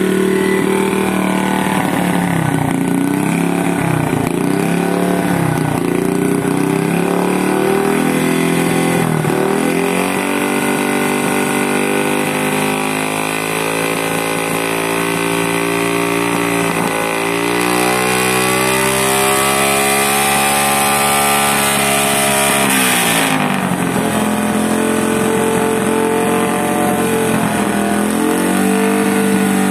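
Motorcycle engine running as a homemade fogging machine, blowing diesel-and-insecticide fog out of its exhaust. The revs waver, then rise in one long climb from a little past the middle, hold high, and fall off sharply about three quarters through.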